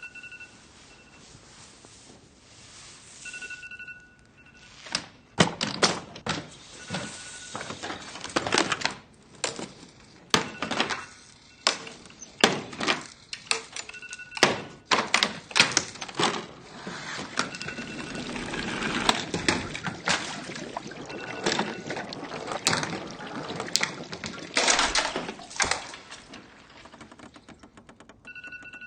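Electronic alarm clock beeping in short high bursts that come back every few seconds, over a run of loud thuds and bangs that are the loudest sounds.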